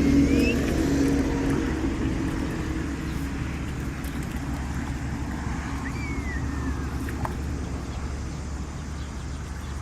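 A motor engine running steadily, its sound gradually fading away, with a few short chirps.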